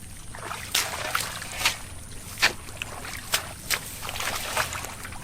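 Irregular sharp splashes and sloshing in shallow muddy water, about seven in a few seconds.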